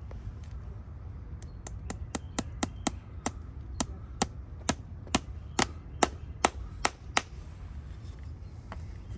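Farrier's hammer tapping: a run of about eighteen sharp strikes, starting about one and a half seconds in. They come quickly at first and then slow to about two a second, growing louder toward the end.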